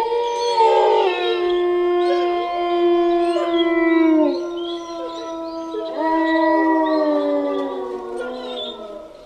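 Wolves howling together: several long overlapping howls at different pitches, some held steady and others sliding down or rising, fading out near the end.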